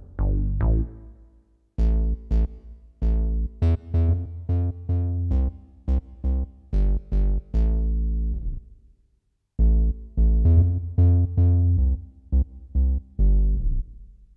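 Casio CTK-800 home keyboard playing one of its preset voices: a run of separate notes, each struck and dying away, with a strong bass and a short pause about nine seconds in.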